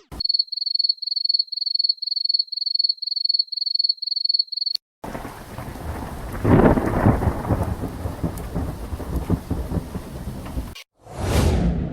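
Sound-effect clips in a row: a high electronic beep repeating about three or four times a second for nearly five seconds, then a thunderstorm effect, rolling thunder with rain, loudest about a second after it starts, and near the end another short burst of noise that dies away.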